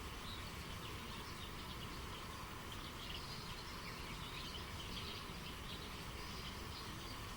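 Steady rush of flowing river water, with small birds chirping in many short, quick notes throughout.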